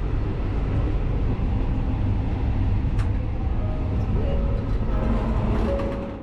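Overnight sleeper train running, a steady low rumble of the wheels and carriage heard from on board, with a sharp click about three seconds in.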